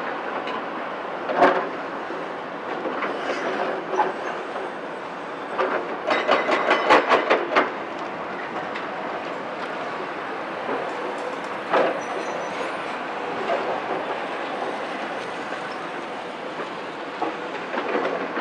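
CAT 374F excavator's C15 ACERT diesel and hydraulics running steadily while its demolition grapple works concrete and timber rubble. Scattered sharp clanks and crunches of debris and steel are heard, with a quick run of about eight clanks around six to seven and a half seconds in.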